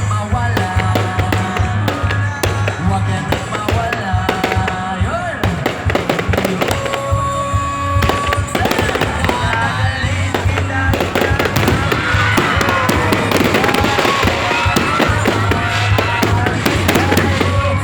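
Fireworks going off in a rapid, continuous barrage of crackles and bangs, over music and voices.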